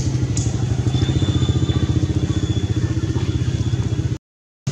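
A small engine running steadily at idle, a low hum with a fast even pulse. It breaks off into dead silence for a moment near the end.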